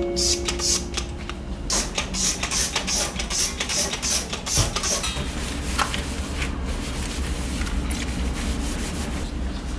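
A cloth rubbing over a stainless steel stovetop wet with spray cleaner: repeated rubbing strokes, dense in the first half, then fainter.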